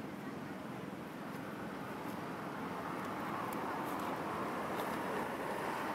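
Steady outdoor background noise, a low rumble and hiss with no clear tone, growing a little louder after about two seconds, with a few faint clicks.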